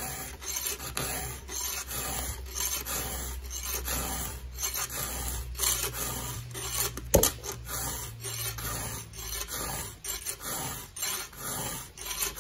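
Round chainsaw file rasping across a saw-chain cutter in repeated strokes, about two a second, sharpening the cutter. One sharp knock about seven seconds in.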